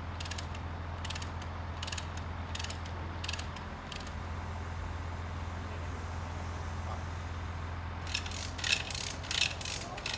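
Ratchet wrench clicking in short strokes, about one every two-thirds of a second for the first few seconds, then a louder run of metallic clicks and clanks near the end, as the bolts on a leg joint of the bronze sculpture are worked. A diesel engine, the mobile crane's, runs steadily underneath as a low hum.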